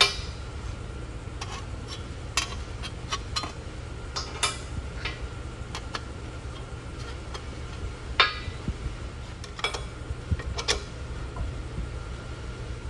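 Scattered metal clinks and knocks as steel press dies and an aluminum baffle sheet are handled and set down on an aluminum block under a shop press, the sharpest about eight seconds in, over a steady low hum.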